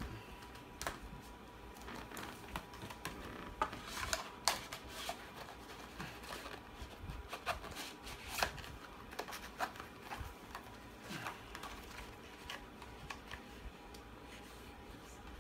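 A plastic Blu-ray case and its cardboard slipcover being handled: scattered light clicks, taps and short sliding scrapes, the loudest about four and eight and a half seconds in, as the case is turned over and slid into the slipcover.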